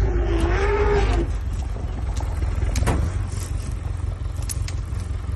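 An African elephant trumpets with one wavering call that stops about a second in, over the steady low rumble of the safari vehicle's running engine. A few sharp knocks follow in the second half.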